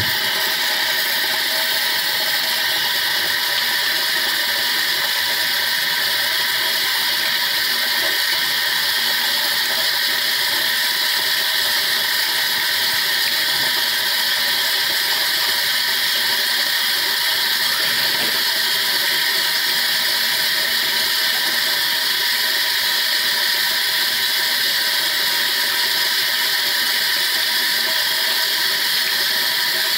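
Tap water running steadily into a bathroom sink close by, a continuous hiss with no breaks.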